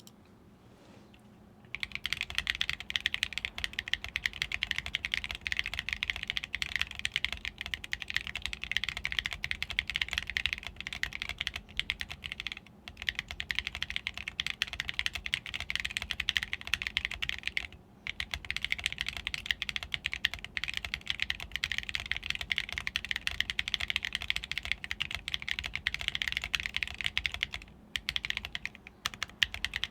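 Fast continuous typing on a custom mechanical keyboard: Tecsee Ruby v2 switches, lubed and filmed, under aluminum keycaps on an aluminum plate. The keystrokes begin about two seconds in and run as a dense clatter, with brief pauses three times.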